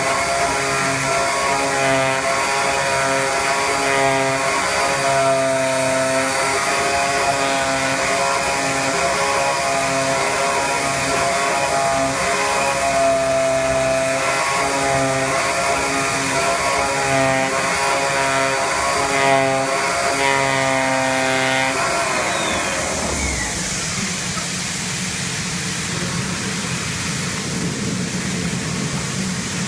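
CNC flatbed digital cutter running as it cuts cork board, a set of steady machine tones pulsing on and off as the head moves. About 22 s in the cutting sound winds down with a falling whine, leaving a steady rushing machine noise.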